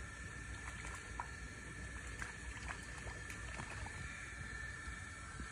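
Black Labrador retriever puppy wading in a shallow muddy puddle, its paws splashing and sloshing the water in small, scattered splashes.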